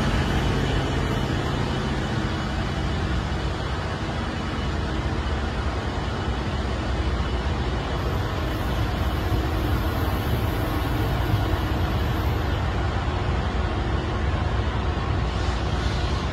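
Bilevel commuter train cars rolling past a station platform, a steady rumble of wheels and running gear. A faint high hiss joins in partway through.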